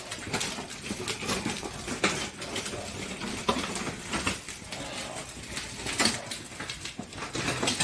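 Irregular knocks and clatter of split firewood logs being handled and set down, several sharp hits spaced unevenly.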